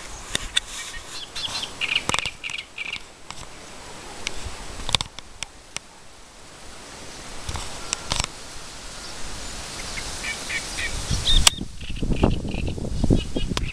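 Small birds chirping in short high notes, with scattered sharp clicks and knocks. About two seconds before the end, an uneven low rumble sets in underneath.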